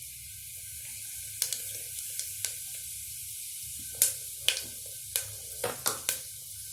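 Fennel seeds and a piece of cinnamon frying in hot oil in a pressure cooker: a steady sizzling hiss with scattered sharp pops as the seeds begin to splutter, the pops coming more often toward the end.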